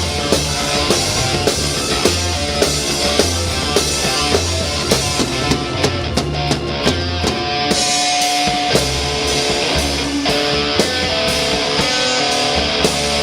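Heavy rock music with a drum kit and electric guitar. About halfway through, a run of quick drum hits leads into long held guitar notes.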